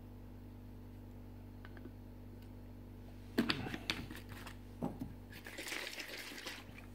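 Low room hum, then from about three seconds in a string of light plastic clicks and a short rasping twist as a white plastic screw cap is screwed back onto a bottle of alcohol.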